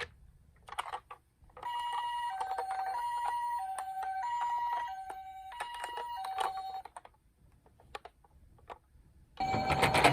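Toy ambulance's electronic two-tone hi-lo siren: a higher and a lower note alternating about every half second for some four cycles, with small clicks, then stopping. Near the end a louder noisy sound starts.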